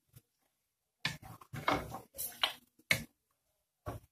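Wooden spoon stirring chicken in an aluminium pot, giving a run of short scrapes and knocks against the pot after about a second of quiet.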